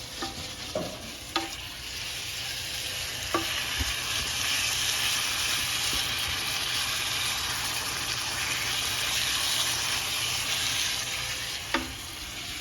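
Marinated chicken pieces sizzling as they sear in hot olive oil in a pan. The sizzle swells after a couple of seconds and eases near the end, with a few light knocks against the pan.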